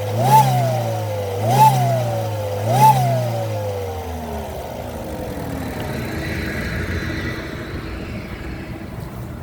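Opel Astra J engine revved in three quick throttle blips about a second apart, each rising sharply and falling back slowly, then settling to idle for the rest.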